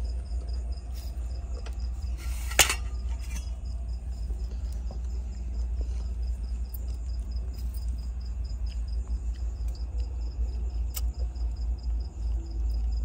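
A cricket chirping in an even, rapid pulse over a steady low hum, with one sharp knock about two and a half seconds in.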